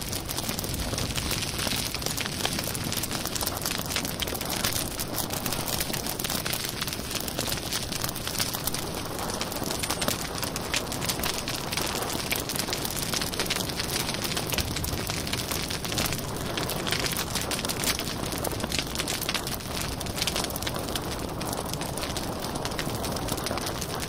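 Wood fire burning: a steady hiss of flames with dense, irregular crackling and popping of the burning logs.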